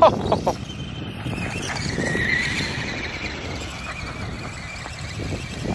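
Electric motor of a SKYRC SR5 1/4-scale RC dirt bike, powered by a 3S (11.1 V) LiPo, whining as it rides. The high whine swells about two seconds in and fades, over a steady low rumble.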